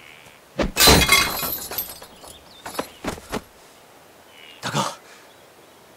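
A sudden shattering crash of something brittle breaking, with pieces rattling on for about a second; a few small clinks follow.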